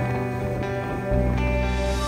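Calm instrumental background music with held notes; a deeper bass note comes in about a second in.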